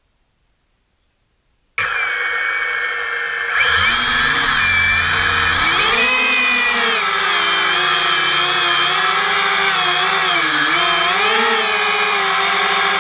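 FPV racing quadcopter's electric motors and propellers, heard from the drone's own camera. The whine starts abruptly about two seconds in, then rises in pitch and loudness as the drone takes off, and keeps wavering up and down as the throttle changes.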